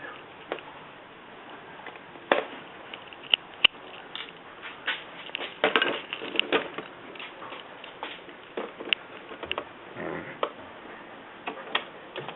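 Irregular clicks, taps and knocks of hands handling the plastic body of an Axial SCX10 Deadbolt RC crawler while taking it off the chassis.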